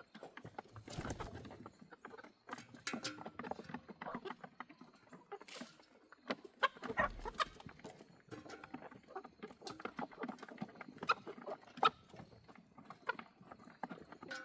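Backyard chickens clucking softly among scattered light clicks and rustling.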